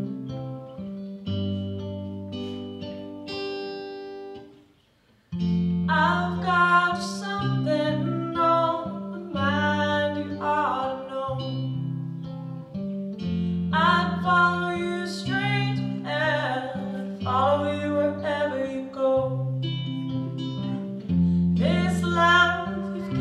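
Two acoustic guitars playing a slow song. They stop for a brief moment about five seconds in, then return with a woman singing over them.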